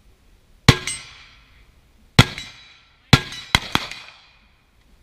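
Five carbine gunshots: two single shots about a second and a half apart, then three in quick succession. Each is a sharp crack with a short echoing tail.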